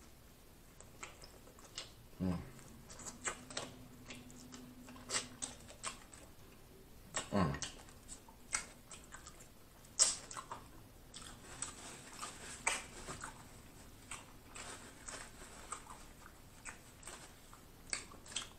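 A person chewing fried food, onion ring, close to the microphone: irregular crackly clicks and wet mouth sounds, with a couple of louder smacks about two and seven seconds in.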